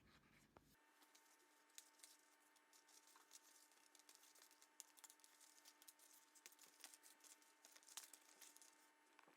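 Faint rustling and scattered small clicks of rope being handled and pulled through a bag during craft work.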